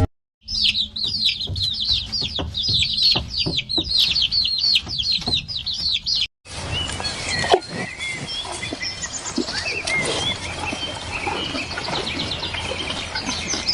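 Chicks peeping rapidly, with high, down-slurred peeps several a second. After a cut about six seconds in, a busier scene of scattered peeping and clucking follows.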